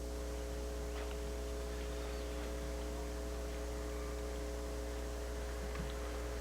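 Steady electrical hum made of several fixed tones over a low drone, with a few faint ticks.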